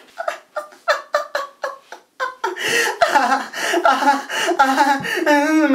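A young man crying: short, choppy sobs for about two seconds, then a drawn-out wail whose pitch wavers up and down.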